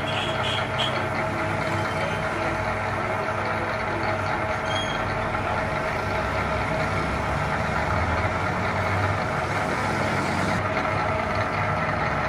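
A machine running steadily: an even mechanical hum with several held tones and no change in speed.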